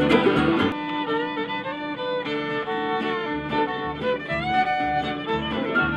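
Acoustic bluegrass band playing, led by a fiddle on long bowed notes that slide between pitches. The upright bass and plucked rhythm drop out about a second in and come back in around the middle.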